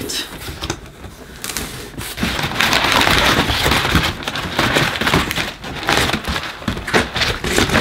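Crumpled brown kraft-paper packing crinkling and rustling as it is pulled out of a cardboard box. The dense crackle starts about a second and a half in, after a quieter start.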